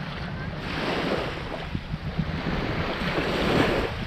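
Small waves washing onto the shore, swelling about a second in and again near the end, with wind rumbling on the microphone.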